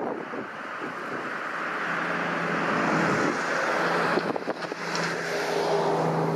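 Road traffic: a vehicle's rushing noise swells over the first few seconds, and a steady low engine hum grows through the second half.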